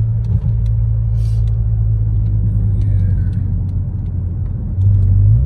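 Cabin sound of a turbocharged Buick cruising at about 40–47 mph: a steady low rumble of engine and road noise. A low tone rises near the end.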